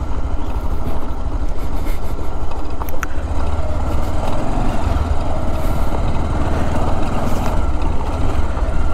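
Motorcycle ridden slowly over a rough gravel dirt track: the engine runs steadily with a strong low rumble, and there is one brief knock about three seconds in.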